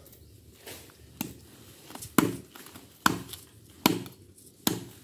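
A machete (golok) chopping into a felled ketapang log: about six sharp strokes, roughly one a second, the first one light.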